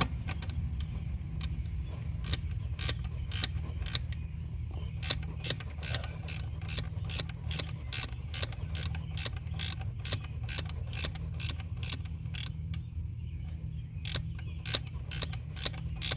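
A 10 mm ratcheting wrench clicking in short, even strokes, about three clicks a second, as a nut is run down onto a stud, over a low steady hum.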